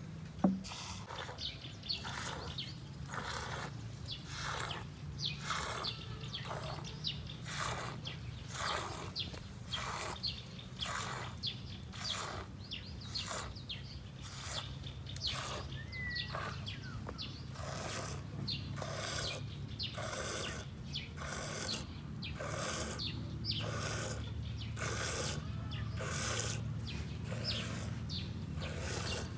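Cow being milked by hand into a plastic cup: a steady rhythm of milk squirts hitting the cup as it fills, a little under two a second. A short bird chirp about halfway through.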